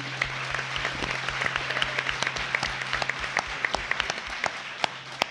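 Audience applauding: many people clapping at once, thinning out near the end, over a steady low hum.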